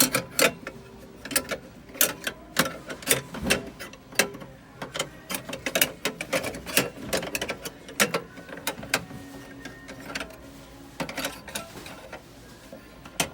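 Irregular metal clicks and clacks of cabinet drawer-lock hardware being handled and worked with the square-ended lock actuator, coming thick and fast for most of the time and thinning out near the end.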